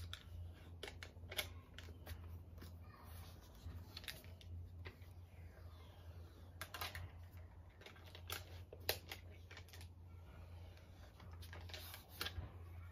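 Faint crackles and clicks of thin plastic protective film being peeled off a new tablet's screen, a few sharp ticks spread irregularly through it, over a low steady hum.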